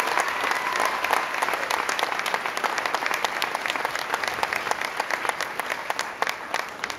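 Audience applause, dense at first, then thinning and fading toward the end.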